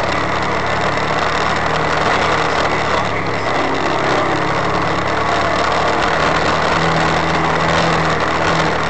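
Side-by-side off-road vehicle's engine running steadily while driving along a dirt trail, heard from on board, with a constant rushing noise of wind and tyres over it.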